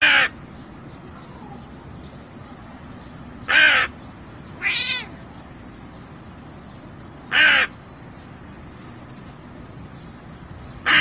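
Hooded crow cawing, one short harsh caw about every four seconds. A cat answers once with a short meow about a second after the second caw.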